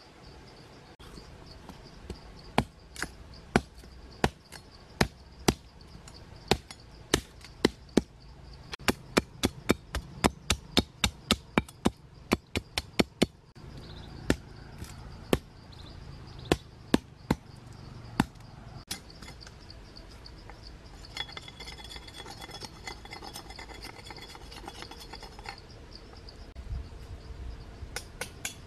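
A hand-held knife blade chopping, dozens of sharp strikes about one or two a second, quickening in the middle and stopping about two-thirds of the way through. A steady high insect drone runs under it, with a buzzing stretch near the end.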